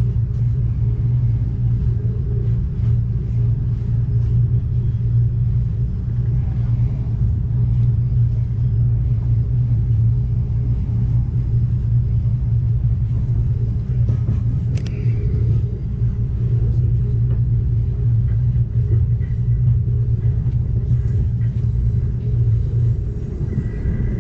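Steady low rumble of an Amtrak Cascades passenger train running along the line, heard from inside the passenger car.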